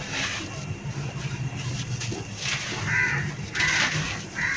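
Dry, dusty earth clods crushed and crumbled between bare fingers close to the microphone: gritty crunching with loose powder pouring back down, in several uneven spells. A bird calls three short times in the second half.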